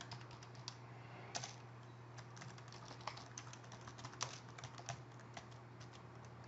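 Faint typing on a computer keyboard: irregular keystrokes over a steady low hum.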